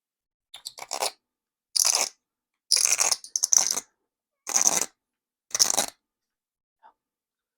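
About six short, gritty scraping strokes, as the inside of a tobacco pipe bowl is scraped to clear out its carbon cake.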